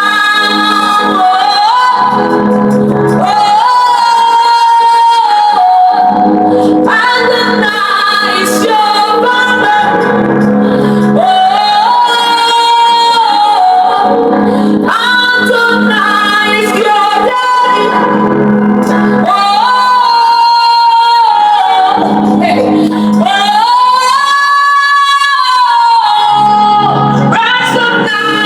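Worship song: a woman singing long, held phrases that swell and fall every few seconds over a sustained instrumental accompaniment.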